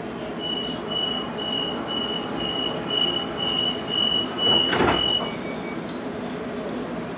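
Sydney Trains carriage door-closing warning: a high beep repeating about twice a second for about five seconds, ending as the doors shut with a loud thud. A short lower beep follows, over the steady hum of the stopped train.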